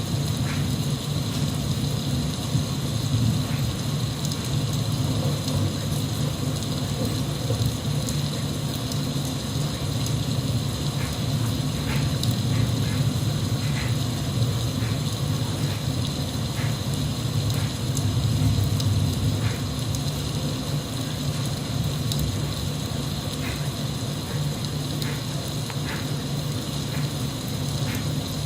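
Steady rain, with a low rumble underneath and scattered drops ticking.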